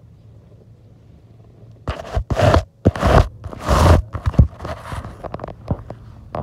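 Handling noise on a phone's microphone: after a quiet start, clothing or fingers rub and scrape directly over the mic from about two seconds in, in a run of loud rustling scrapes and knocks as the phone is moved.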